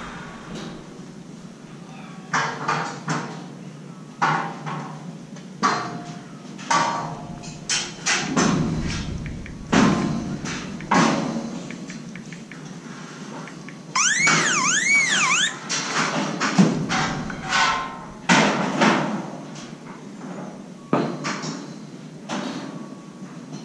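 Irregular metal clanks and bangs of steel scaffolding parts, each ringing briefly and echoing in a large hall. A short warbling tone sweeps up and down several times about two thirds of the way through.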